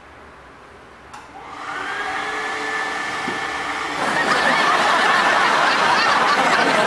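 Wall-mounted automatic hot-air hand dryer starting about a second in, its fan spinning up into a steady blowing noise with a high steady tone. About four seconds in it gets abruptly louder and rougher as it blows over hands held under it.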